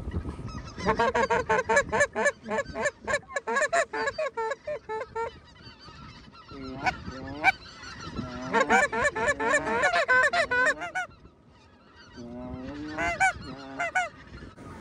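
A large flock of geese honking overhead, many calls overlapping in quick succession, in several bouts with a short lull about eleven seconds in.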